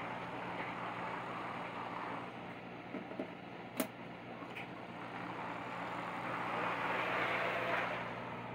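S gauge model diesel locomotive with an American Models drive running along the track: a steady motor whir and wheels rolling on the rails, with a low hum beneath. It swells louder near the end, and there is one sharp click about four seconds in.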